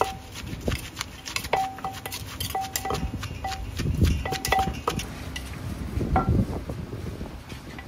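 Kitchen utensils and dishes clattering during food preparation: a quick run of knocks and clinks, some ringing briefly, with heavier thumps about four and six seconds in, then thinning out.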